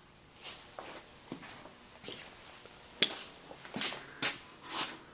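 A handful of sharp clicks and light knocks with brief rustling swells between them; the loudest click comes about three seconds in.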